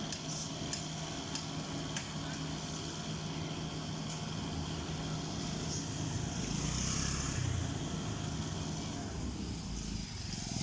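Vehicle engine running steadily, swelling louder for a couple of seconds about six seconds in.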